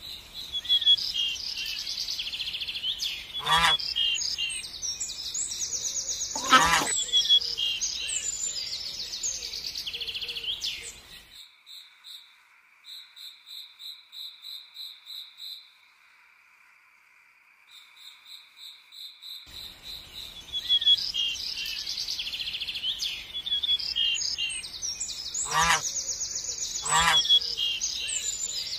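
Woodland bird chorus: small birds chirping and trilling over a steady pulsing insect-like call, with two loud bird calls a few seconds in and two more near the end. Midway the chorus drops away to faint pulsing and near silence for several seconds before returning.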